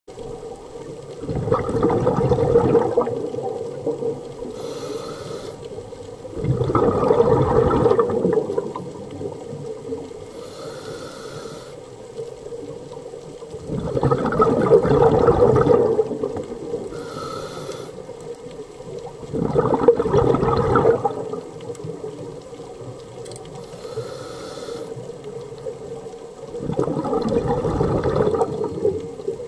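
A scuba diver breathing through a regulator underwater. Five loud bursts of exhaled bubbles come about every six seconds, each lasting around two seconds, with a fainter hiss of inhalation between them.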